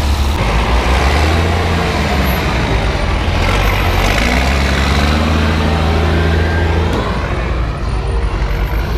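Heavy military vehicle engine running loud and low, its pitch rising and falling as it revs, with an abrupt change in the sound about seven seconds in.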